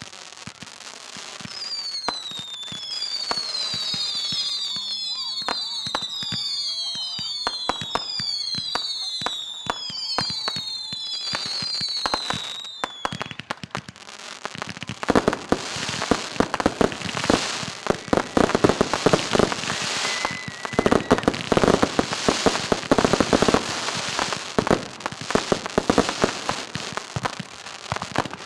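Fireworks going off. For the first half many whistles overlap, each falling in pitch, then from about halfway a dense crackling of rapid pops and bangs takes over.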